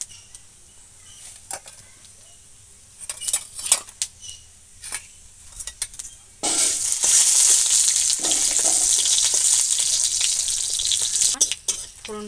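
Whole spices (panch phoron, a bay leaf and a dried red chilli) frying in hot oil in a steel wok, the tempering step of a fish curry. Scattered crackles and pops at first, then a loud steady sizzle starts suddenly about six seconds in and stops shortly before the end.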